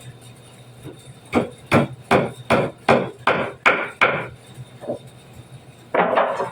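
A hammer striking wood, about eight even blows at roughly two and a half a second, then a lighter knock and a final louder, rougher blow near the end.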